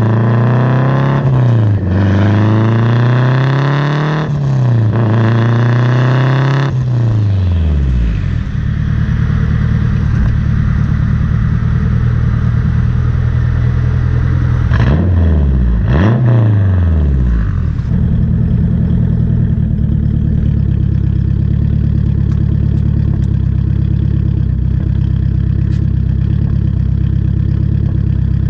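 Turbocharged Honda K20 four-cylinder heard at the exhaust tip through 3-inch piping and a KTuned turn-down muffler. It accelerates with rising pitch through two gear changes, settles to a lower steady note, gives two quick revs about halfway, then idles steadily.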